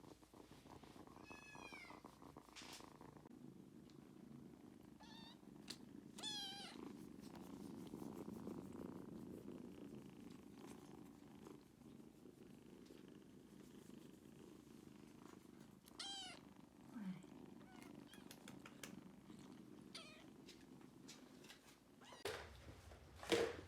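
Kittens purring steadily, with several short, high-pitched kitten meows over the top and a louder sound near the end.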